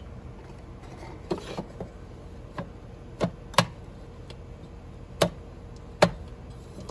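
Several sharp clicks and knocks, spread out and irregular, from handling the outdoor air-conditioner disconnect box: its cover being opened and the pull-out disconnect worked loose to cut power to the unit.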